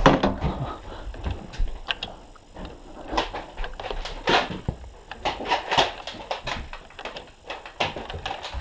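Scattered light knocks and clicks at irregular intervals, the handling and movement noise of a player moving about with a Nerf blaster.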